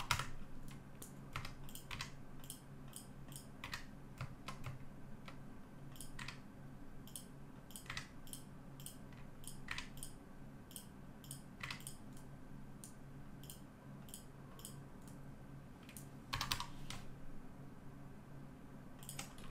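Computer keyboard keys and mouse buttons clicking irregularly while shortcuts are entered, with a short flurry of clicks near the end, over a faint steady low hum.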